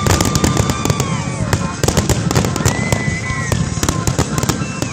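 Fireworks display: a dense, unbroken barrage of bangs and crackles from many shells bursting at once, with a few long whistling tones that arch up and down in pitch over it.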